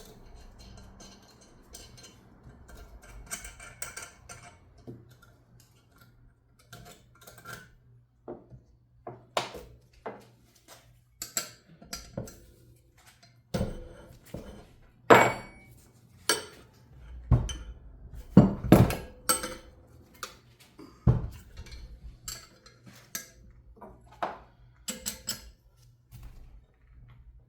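Metal tools and parts of a turbocharger clanking and knocking on a workbench during teardown, in irregular scattered hits. The heaviest knocks come a little past the middle.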